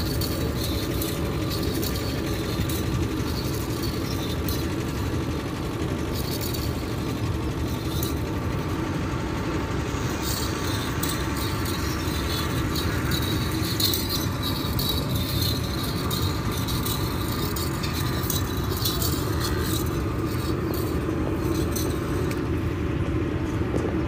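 Steady outdoor background noise with a low rumble and a few faint steady hums, broken by scattered faint light clicks.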